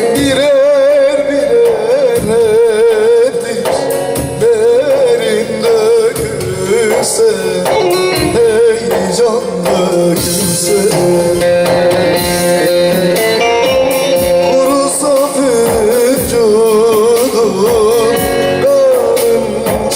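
Teke-region Turkish folk song (türkü): a male voice sings an ornamented melody with a strong vibrato over stringed-instrument accompaniment.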